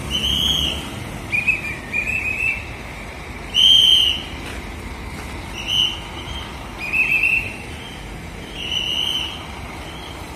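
A hand whistle blown in about seven short, high blasts at irregular intervals, the loudest about three and a half seconds in. These are guiding signals to the driver of a large Scania coach being manoeuvred out of a tight spot.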